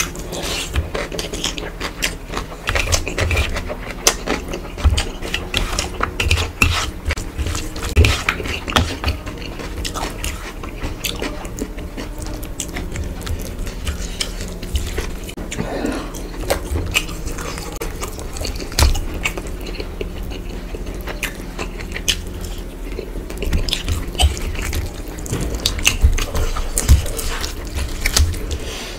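Close-miked chewing and mouth smacks of a person eating rice and curry by hand, with fingers squishing and mixing rice on a steel plate. The sound is a run of irregular wet clicks and smacks.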